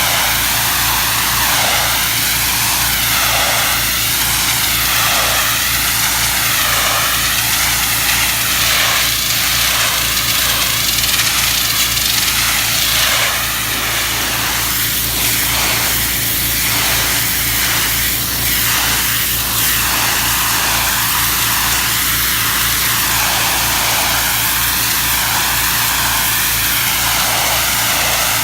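Engine-driven pressure washer running steadily, with the high-pressure water spray hissing over a low engine drone; the hiss wavers in tone as the spray moves.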